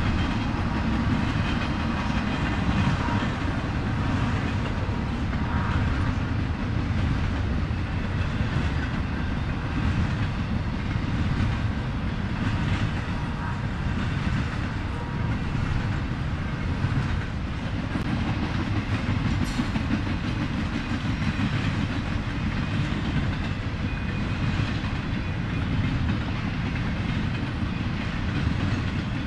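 Train passing at length, its railroad cars rolling over the rails with a steady, unbroken rumble.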